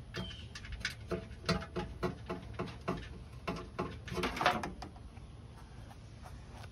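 A run of short clicks and knocks, about two or three a second, with a denser cluster about four seconds in.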